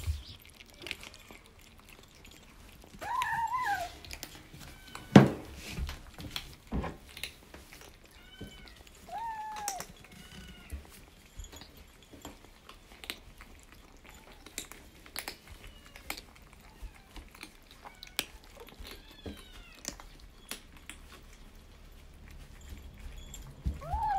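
Kittens crunching dry kibble from ceramic bowls, with many small sharp crunches and clicks, while one kitten meows several times between mouthfuls and gives a few short chirps. A single sharp knock about five seconds in is the loudest sound.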